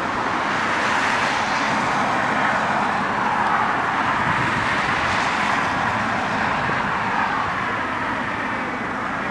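Steady jet roar of an Embraer E190's twin turbofan engines at takeoff power, slowly falling in pitch, mixed with road traffic noise.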